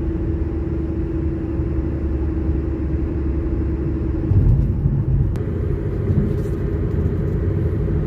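Car driving along a road: a steady low rumble of tyres and engine with a steady hum over it, which drops away about four seconds in and comes back slightly higher in pitch.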